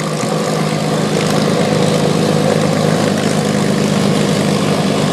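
Propeller airplane's piston engine running steadily, growing a little louder over the first second and then holding level.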